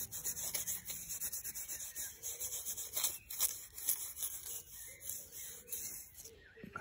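Quick, irregular scratchy rubbing close to the microphone, which stops about six seconds in.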